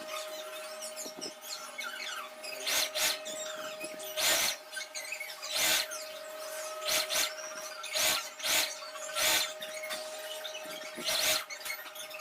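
Sewing machine with its motor humming steadily, running in a series of short, irregular bursts of stitching on denim.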